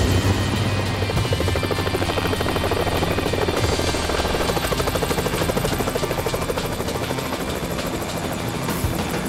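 Helicopter rotor chopping rapidly and steadily, with a low engine hum and film-score music underneath.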